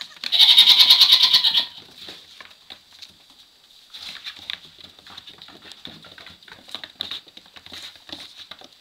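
Nigerian Dwarf goat kid bleating loudly and close by, one quavering bleat about a second and a half long just after the start. Then light scattered taps and rustles of small hooves on the straw-littered floor.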